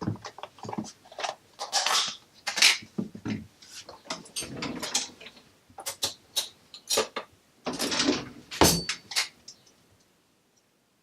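Irregular clicks, knocks and rustling of kitchen items being handled as butter is fetched and portioned, with one loud thump about nine seconds in.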